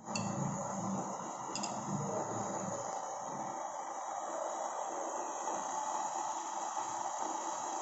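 Water heating in a stainless steel saucepan over a gas burner, a steady hiss as small bubbles form on the bottom of the pan before it comes to the boil. A small tick about one and a half seconds in.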